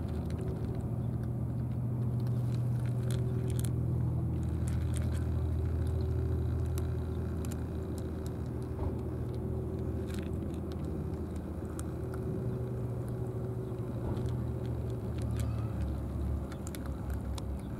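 Cats crunching dry kibble from a plastic dish: scattered small crisp clicks of chewing, over a steady low engine-like hum that is the loudest sound throughout.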